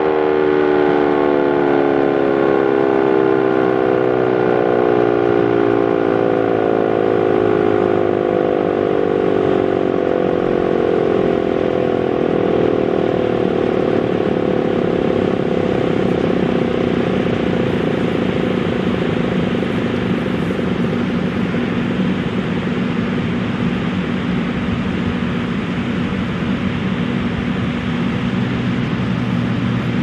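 Werden P-127 single-tone rotating warning siren, with a collapsed intake, winding down: its tone falls steadily in pitch over about the first twelve seconds. It then carries on as a low hum and rushing noise while the head keeps turning.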